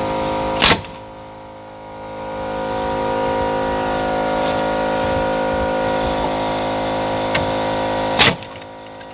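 Banks pneumatic framing nailer firing twice into cedar framing, one sharp shot about a second in and another near the end. Between the shots a motor runs steadily underneath.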